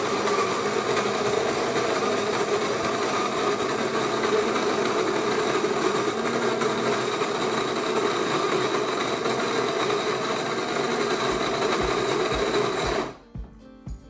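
Krups GVX2 electric burr coffee grinder running steadily, grinding coffee beans at its coarsest (max) setting. It stops about thirteen seconds in, followed by a few soft knocks.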